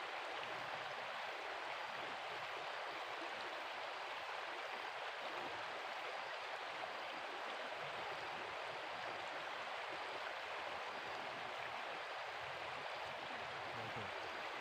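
Steady rush of flowing stream or river water, an even hiss that does not change.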